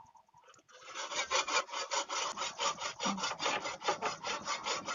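Motorcycle brake disc being rubbed down with an abrasive in quick back-and-forth rasping strokes, about five a second, starting about a second in. The disc's surface is scored and uneven, so the brake does not grip, and it is being ground flat.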